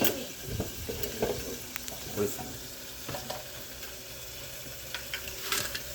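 Steady sizzle of food frying in a pot, with scattered light clicks and knocks of a utensil against the pot.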